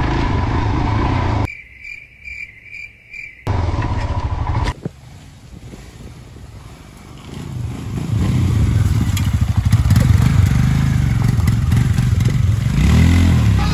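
Motorcycle engine running on an off-road track, cut in and out in edited pieces, rising and revving harder near the end. About 2 s in, a quieter stretch holds a row of short high beeps, about three a second.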